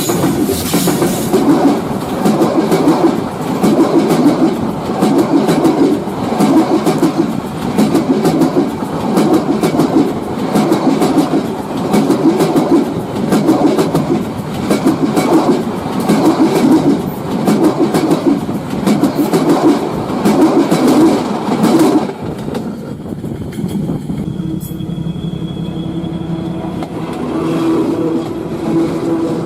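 Railway cars rolling past close by, their wheels clattering over rail joints in a steady repeating rhythm of about one beat group every second and a half. The clatter cuts off suddenly about 22 seconds in as the last car clears, leaving a much quieter, steadier background.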